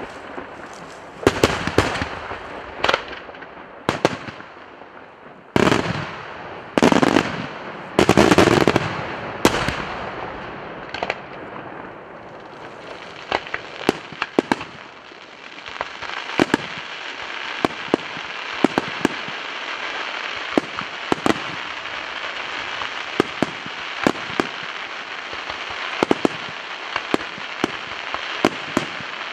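Daytime aerial fireworks bursting. A run of loud bangs and sharp cracks fills the first ten seconds, some of them longer and heavier. After that comes a steady, dense crackling hiss with many sharp reports going off through it.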